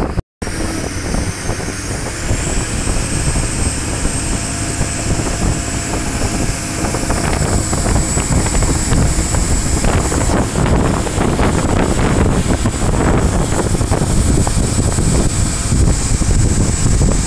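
Parasail tow boat's engine running under way, with heavy wind buffeting the microphone. A thin high whine rises over the first few seconds and then holds steady, and the whole sound gets louder about halfway through.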